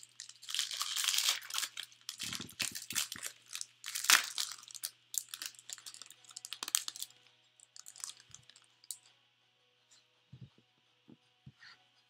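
Plastic trading-card pack wrapper torn open and crinkled by hand for about seven seconds, then a few light taps as the cards are set down on the table.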